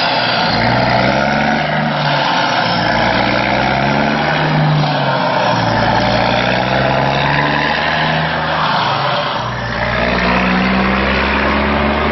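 Truck engine running, its low note rising and falling several times, with a short dip about nine seconds in, as an outro sound effect.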